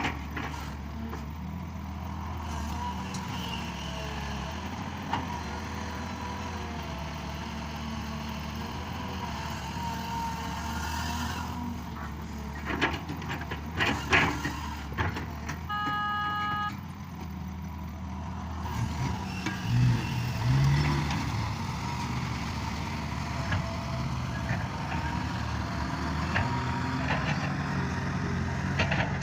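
Excavator's diesel engine running steadily, with several metallic clanks and knocks near the middle and a short electronic beep just after them.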